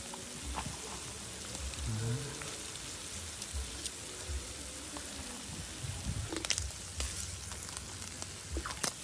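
Small fish frying in hot oil in a wok, the oil sizzling steadily, with a few light clicks of chopsticks against the pan as the crisp-fried fish are lifted out.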